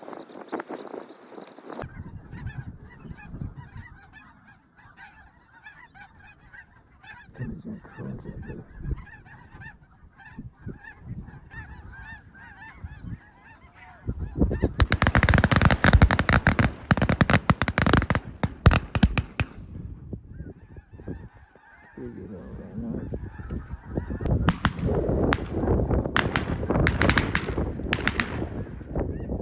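A large flock of snow geese calling, a dense chatter of many overlapping honks. It grows much louder about halfway through and again near the end.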